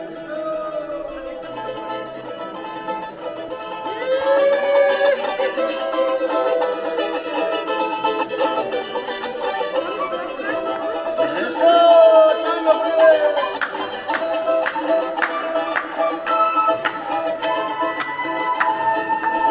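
Andean folk music in carnavalito style: a small plucked string instrument is strummed and picked while a voice sings long held notes.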